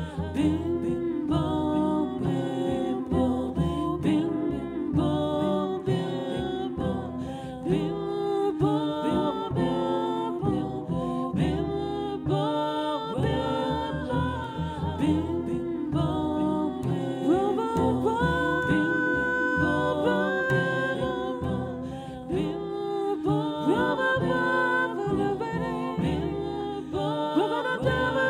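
A woman singing into a microphone, accompanied by a double bass.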